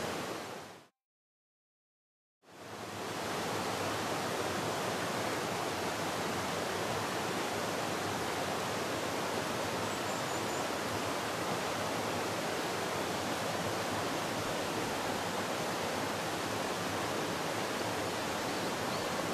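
Shallow mountain stream rushing steadily over rocks, a constant hiss of running water. It fades out just after the start, drops to silence for about a second and a half, then fades back in and holds steady.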